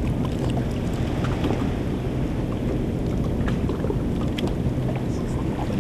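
Wind buffeting the microphone in a steady low rumble, with small splashes and drips of sea water as hands work in the shallows.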